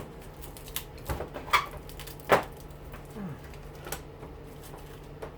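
Hand tools and metal parts of a washing machine motor being handled: a few scattered clicks and knocks, the loudest about two seconds in, over a faint steady hum.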